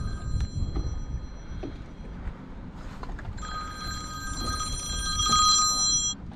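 A phone ringing: a ringtone of steady high tones in two spells, the first fading out about two seconds in, the second starting a second or so later and cutting off suddenly near the end as the call is answered.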